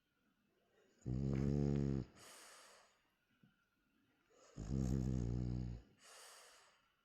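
French bulldog snoring in its sleep: two slow breaths. Each is a loud, buzzing snore about a second long, followed by a softer, airy breath.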